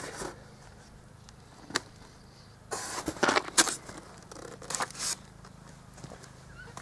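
A polystyrene foam box of tube seedlings being gripped and shifted over dirt, its foam and the seedlings' leaves scraping and rustling in short bursts. A sharp click comes just before two seconds, the longest burst about three seconds in, and a shorter one near five seconds.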